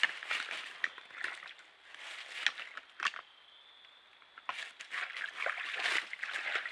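White-tailed bucks scuffling through dry leaf litter: dense rustling and crackling with sharp clicks, in two spells broken by a short pause about three seconds in.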